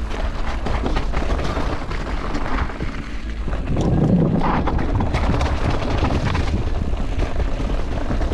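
Wind buffeting the action-camera microphone over the tyre rumble and rattle of an electric mountain bike riding down a gravel trail, with scattered clicks and knocks. About four seconds in the noise peaks as the tyres run over wooden boardwalk planks.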